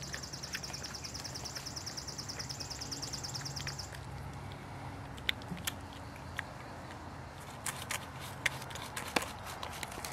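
Porcupine eating close to the microphone: scattered sharp clicks and crunches in the second half. For the first four seconds a rapid, high-pitched pulsing trill runs over a low hum.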